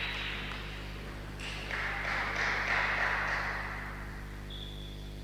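Table tennis hall ambience between rallies: faint taps of celluloid table tennis balls over a steady hum, with a hiss of hall noise that swells about a second and a half in and fades again.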